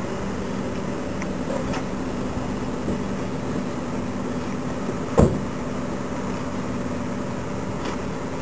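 Steady mechanical hum, with a single loud car door slam about five seconds in.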